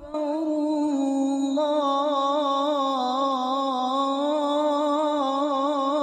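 Islamic call to prayer (adhan) sung by a single voice, holding one long wavering, ornamented note that begins abruptly.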